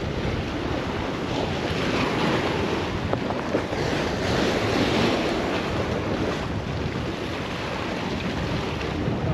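Wind buffeting the microphone over the steady wash of surf.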